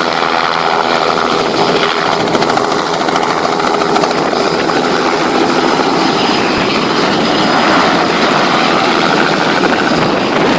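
Helicopter running close by, a loud steady mix of engine and rotor noise. A clear engine hum in the first couple of seconds gives way to a rougher, noisier sound.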